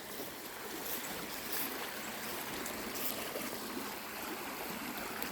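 Steady rushing of creek water, with a few faint soft rustles.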